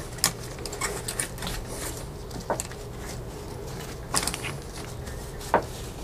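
A damp rag wiping down a bicycle's fork and frame by hand: soft rubbing with scattered light clicks and knocks as the bike is handled, over a steady low hum.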